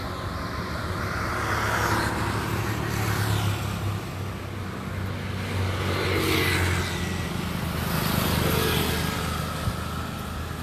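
Road traffic: vehicle engines running steadily, with several vehicles passing by one after another.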